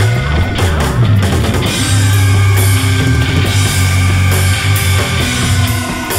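Rock music with drums, bass and distorted guitar.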